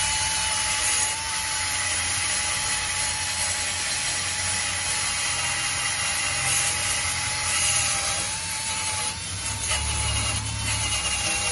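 Cordless drill spinning a wire wheel brush against a rusty exhaust pipe, scrubbing off the corrosion. A steady motor whine with the scratchy grind of the wire bristles, the pitch sagging slightly now and then as the brush is pressed in.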